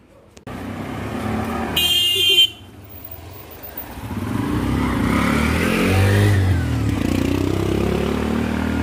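Motorcycle and auto-rickshaw engines passing close by on a narrow lane, with a short vehicle horn honk about two seconds in; the engine noise builds again from about four seconds in and stays loud.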